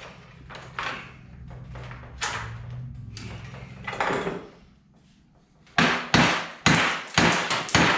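A few clanks as a bench vise is adjusted and tightened. Then, about six seconds in, a quick series of hard hammer blows, about two a second, each with a short metallic ring, driving a small-block Chevy oil pump pickup tube into its tight press-fit bore in the pump.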